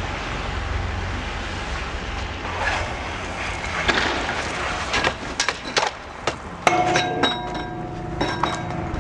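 Skis and ski boots knocking and clattering on the roof of an ATM booth and its handrail as a skier scrambles up and drops off. There is a string of sharp knocks over a low rumble, and a steady high tone joins in about two-thirds of the way through.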